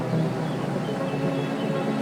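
Calm relaxation music made of layered, long held tones.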